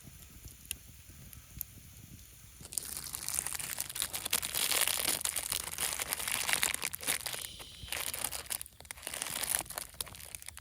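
Crinkling and rustling, as of something being handled, starting about three seconds in after a quiet start with a few faint ticks.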